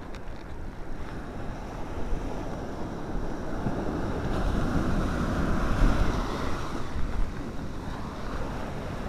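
Small surf waves breaking and washing up a sand beach, with wind buffeting the microphone; the wash of water swells to its loudest a little past halfway and then eases off.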